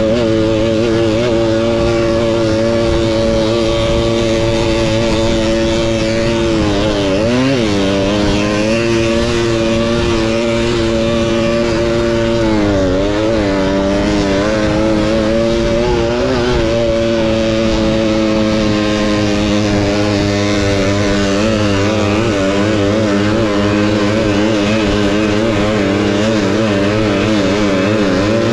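Tuned Balkan 50 motorcycle's 50cc two-stroke engine running hard at high revs under race load. Its pitch dips and climbs back three times as the throttle is eased and reopened.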